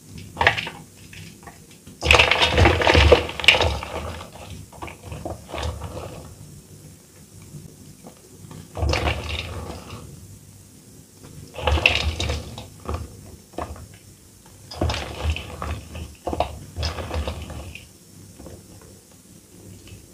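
Soft reformed gym chalk being squeezed and crushed by hand over a metal bowl: bursts of soft crunching and crumbling as the pressed chalk breaks into powder. There are four main bursts, the loudest about two seconds in, with light crumbly ticks between them.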